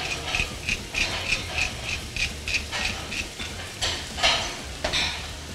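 Wooden pepper mill being twisted to grind pepper, clicking evenly about three times a second, stopping about three seconds in. Two or three louder scuffs follow near the end.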